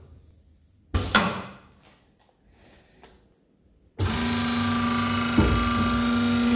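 Two sharp clunks about a second in, then about four seconds in the Yilmaz FR 226 copy router's motor switches on and runs with a steady hum and whine, with one thud while it runs.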